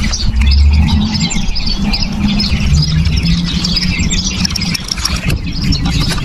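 Many small birds chirping continuously over a steady low rumble.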